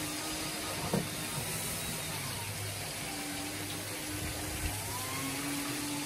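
Hoover 5464 rotary rug shampooer running, its motor humming with a pitch that wavers slowly as the spinning brush head scrubs a wet, foamy rug. A short knock comes about a second in.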